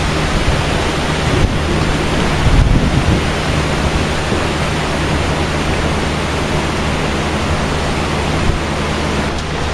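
Tsunami floodwater rushing and churning through a street, a loud, steady wash of water noise.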